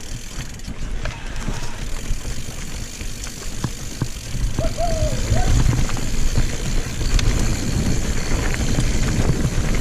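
Mountain bike rolling down a dirt singletrack: wind rumbling over the microphone, with the tyres on dirt and the bike rattling over bumps.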